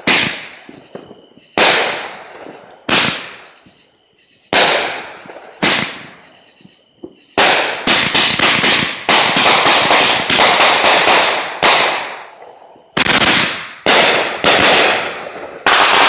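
Hot Fireworks "Show Starter" multi-shot firework cake firing aerial bursts, each a sharp bang with a fading echo tail. The bangs come about one every second and a half at first, then a rapid volley of well over a dozen about halfway through, then four more spaced bangs near the end.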